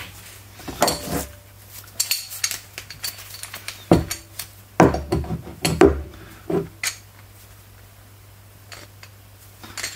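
Metal tools being handled on a workbench, clinking and knocking in a series of separate clanks through the first seven seconds, then quieter.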